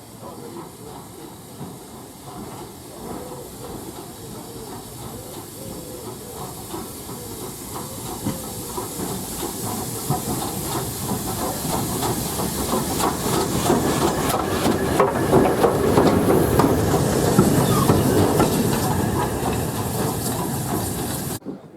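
Steam locomotive with its train, hissing steam and a rapid rattle over the rails, growing steadily louder as it draws near to a peak about three-quarters of the way through; the sound cuts off suddenly near the end.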